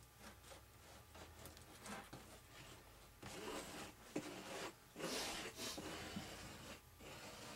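Epoxy being spread with a scraper over fiber tape on an RC plane wing: a series of irregular scraping strokes, longer and louder in the second half.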